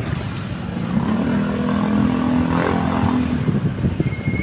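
Motorcycle engine running close by, a steady droning note for about two seconds in the middle. Under it is the rumble of wind and road noise from riding a bicycle.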